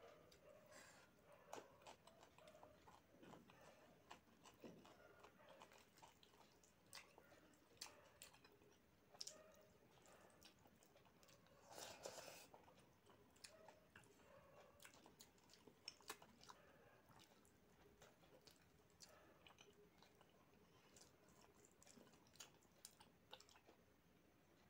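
Faint chewing and wet mouth clicks from a person eating rice and curry by hand, with scattered small clicks throughout and a brief louder mouthful noise about halfway through.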